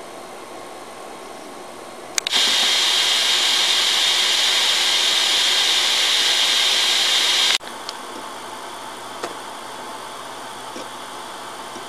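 Desktop PC cooling fans giving a steady rushing hiss. About two seconds in, a click brings a much louder, higher rush of air for about five seconds, which stops abruptly with another click, leaving the steady fan noise with a faint low hum.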